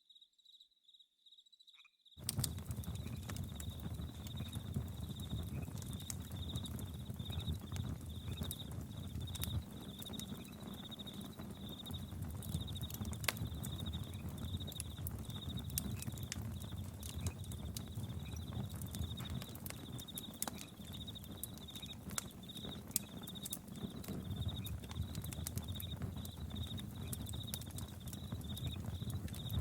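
Campfire crackling, with scattered sharp pops over a low rumble, and crickets chirping in a fast, even pulse at a high pitch. The sound drops almost to silence for the first two seconds, then comes back.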